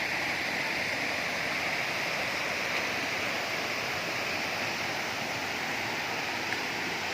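Waterfall running: a steady rush of falling water over rocks.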